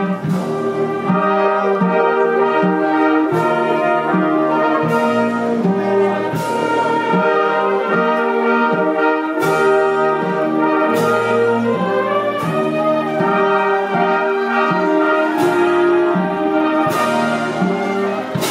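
Sicilian brass band playing a slow procession march on the move, sustained brass chords over a bass line, with a cymbal crash about every second and a half.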